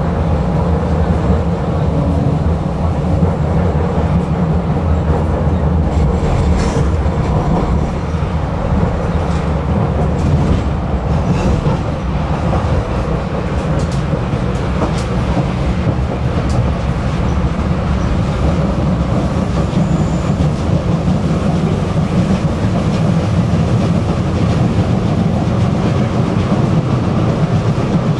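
Tram running along its track: a steady low rumble of wheels and running gear, with a faint steady hum and a few sharp clicks from the wheels on the rails.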